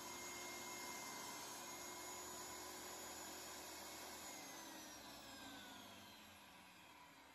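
Delta 36-6013 10-inch table saw running free with a steady whine, switched off about four seconds in; the whine then falls in pitch as the blade coasts down.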